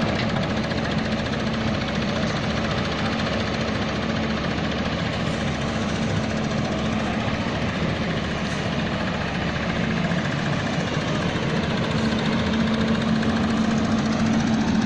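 Engine of a concrete mixer running steadily at a constant speed, with an even hum and a knocking chug.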